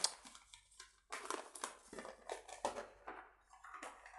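Paper rustling and crinkling in irregular short bursts as letters and envelopes are handled.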